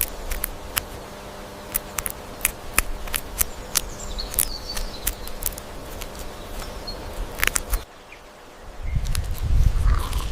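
Outdoor nature ambience of many small clicks and rustles over a steady hiss, with faint high chirps about four to five seconds in and a low rumble near the end.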